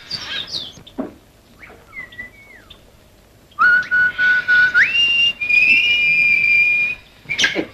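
A woman whistling through pursed lips, a come-hither call: a held low note that slides up to a higher held note with a slight wobble, lasting about three seconds and starting about halfway through. Faint short chirps come before it.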